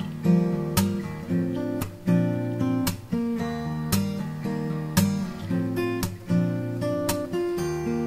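Background music: a guitar strumming chords, with a new strum about once a second.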